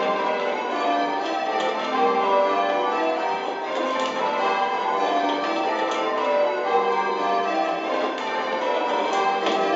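Eight church bells full-circle rung in spliced Surprise Major change ringing, strikes following one another in an unbroken, shifting sequence, heard from the ringing chamber below the bells.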